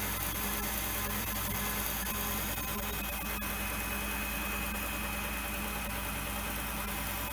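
Metal-working lathe running steadily while its tool turns a POM (acetal) pulley blank, peeling off long ribbons of plastic swarf. A steady machine drone, with a faint thin high tone coming in about a third of the way through.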